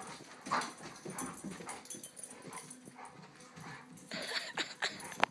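Two dogs playing, a puppy in a plastic cone collar and a larger black dog, making short, scattered dog sounds, with a cluster of them about four seconds in and a sharp click near the end.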